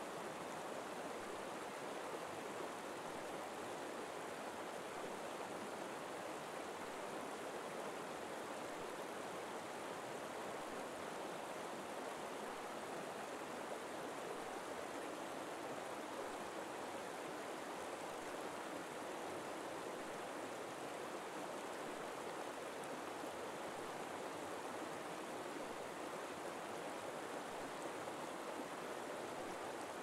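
Forest river flowing: a steady, even rush of water.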